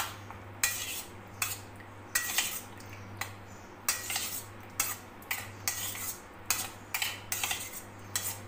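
Metal spoon clinking and scraping against a stainless steel bowl, about twice a second, as chunks of liver are mixed into yogurt.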